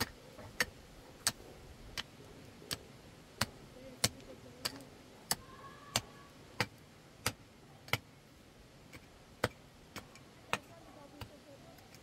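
Sharp knocks repeating at an even pace, about three every two seconds, like something being struck over and over.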